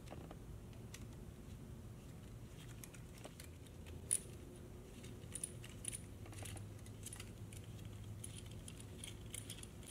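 Faint, scattered metallic clicks and clinks of bolts, washers and a hand tool as the reservoir bracket bolts are fitted and tightened into the motorcycle's engine case. One sharper click comes about four seconds in, over a low steady hum.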